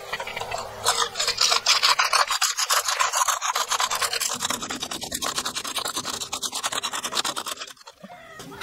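Hand-powered (non-electric) drill boring a twist bit into a workpiece clamped in a bench vise: fast, rhythmic scraping of the bit cutting, stopping near the end as the bit is lifted out.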